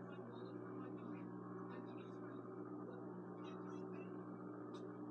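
Cast-aluminium spinner motor of a TAT Ornate ceiling fan running steadily at high speed on its variable speed switch, a low, even electrical hum, with a few faint ticks over it.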